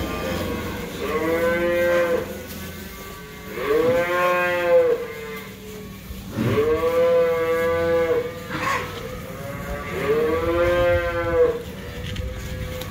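Young beef cattle mooing in a shed: four long, drawn-out moos about three seconds apart, each rising at the start and falling away at the end.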